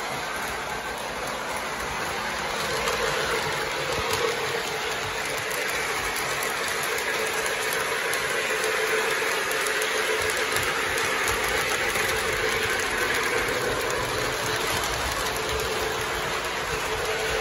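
Lionel Legacy Southern 4501 Mikado model steam locomotive running on O gauge track, its onboard sound system playing steam locomotive sounds over the running of its wheels and motor. The sound grows louder about two seconds in.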